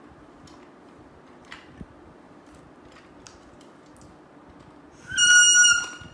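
Plastic toy whistle blown once: a single high, steady note lasting just under a second near the end. Before it come a few light clicks of plastic toys being handled.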